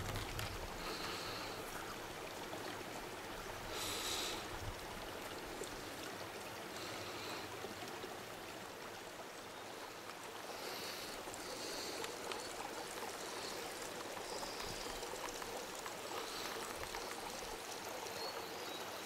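A small mountain stream running steadily, with a few brief, soft higher sounds on top.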